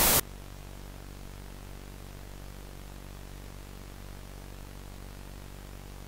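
A loud burst of television static cuts off abruptly just after the start. It leaves a steady low electrical hum with a faint hiss, in the style of a VHS tape.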